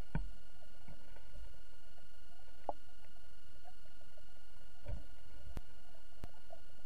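Steady hiss with faint steady electronic tones, as picked up by an underwater camera in its sealed housing. A few scattered clicks and knocks, the strongest just after the start and about five seconds in.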